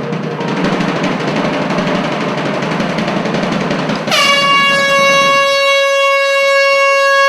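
A drum roll, then about four seconds in a single loud blown horn note that sets in sharply and is held steady.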